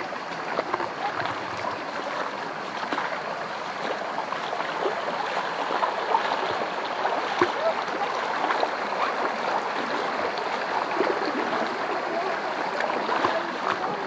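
Shallow mountain stream running over stones, a steady rushing with many small splashes and ticks of water.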